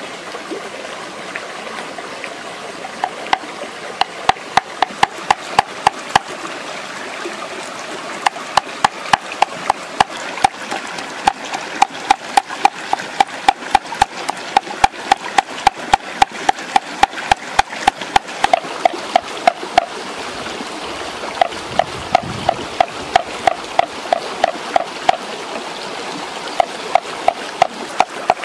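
Knife chopping raw fish flesh into mince on a round wooden chopping board: fast, even chops about four a second, each a sharp knock with a short ring, coming in runs with brief pauses. A stream runs steadily underneath.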